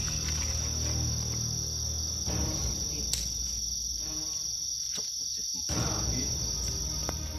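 Crickets trilling steadily at night in one high, unbroken note, over a low steady hum.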